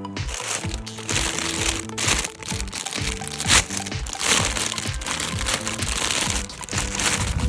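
Background music with a steady beat over crinkling of plastic toy packaging being handled, with one sharp crack about three and a half seconds in.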